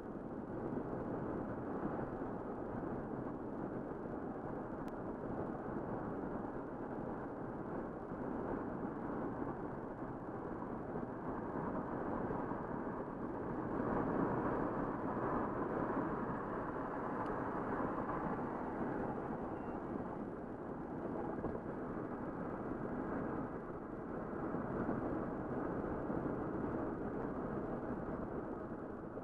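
Car driving at highway speed, heard from inside the cabin: a steady rush of tyre and road noise that swells a little about halfway through.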